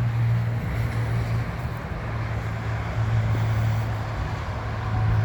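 Steady low machine hum under a rushing background noise.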